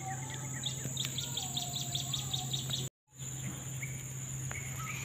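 Outdoor insect and bird ambience: a steady high insect drone with a bird's rapid run of repeated chirps and a few short whistles. The sound cuts out for an instant just before three seconds in.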